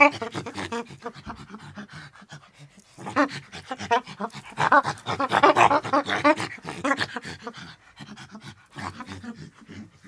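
Bonobo (pygmy chimpanzee) vocalising: rapid strings of short pitched calls, several a second, loudest in a long run through the middle and breaking into shorter, fainter bursts near the end.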